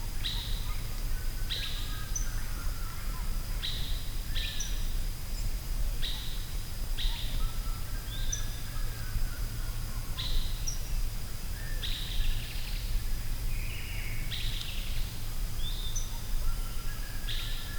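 Forest birds calling, short sharp chirps repeating about every second or so, with fainter higher chirps between, over a steady low rumble and a thin steady high tone.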